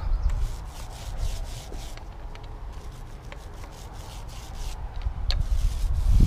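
Paint roller rubbing over wooden deck stair boards, spreading a thick deck coating; the strokes swell louder near the end.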